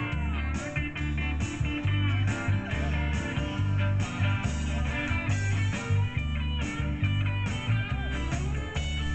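Live country band playing an instrumental passage: electric guitars and bass over a steady drum beat, with a lead line that bends in pitch.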